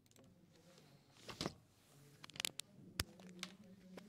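A handful of soft clicks and taps at irregular intervals, starting about a second in, over a faint low hum.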